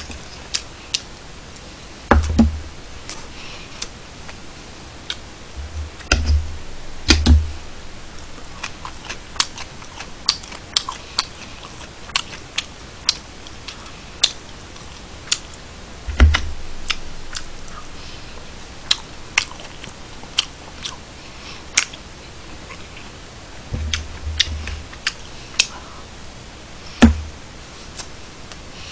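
Close-miked eating sounds at a table: scattered sharp clicks every second or so, from utensils and mouth, with a few dull thumps, the strongest about 16 and 27 seconds in.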